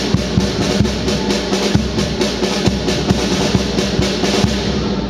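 Marching band drum line playing a steady cadence: bass drum strokes about twice a second under snare drum rolls. The drumming stops near the end.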